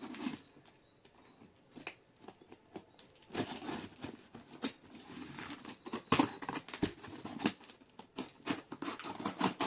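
A parcel of books being opened by hand: irregular rustling, crinkling and tearing of packaging, with sharp clicks and scrapes, starting a few seconds in after a quiet moment.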